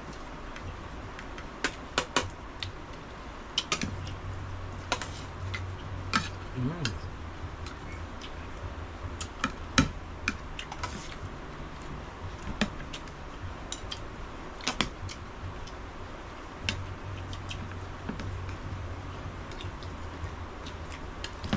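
Metal spoons and forks clicking and scraping against plates as two people eat, in irregular sharp clinks. A low hum comes and goes underneath.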